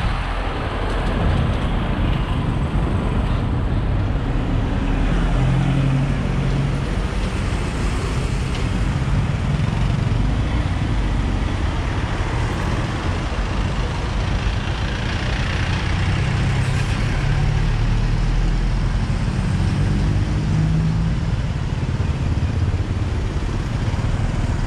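Motorcycle riding in road traffic, heard through a camera mounted on the bike: wind rushing over the microphone and the engine running, its hum rising in pitch a few seconds in and again past the middle.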